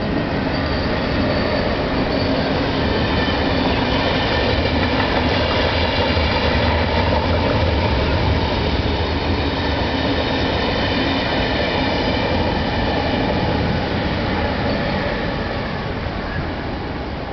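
KTT through train, an electric locomotive hauling double-decker passenger coaches, passing at speed: a steady rolling rumble with a thin high whine over it. It swells to its loudest about halfway through and eases off as the train clears.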